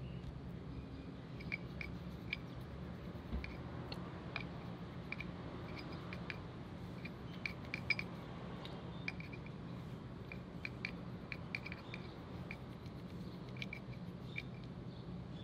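Toothbrush scrubbing dirt out of an alloy wheel's wet centre-cap recess: faint, irregular small ticks and clicks over a steady low hum.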